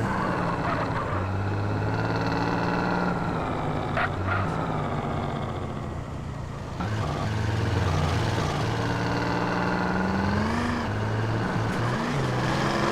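Motor of a radio-controlled model running, its pitch rising and falling as the throttle changes, with a brief drop about six seconds in before it picks up again.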